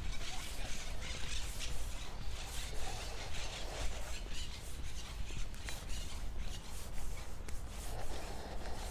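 Footsteps crunching on a gravel path, an irregular gritty crackle, over a steady low rumble of wind on the microphone.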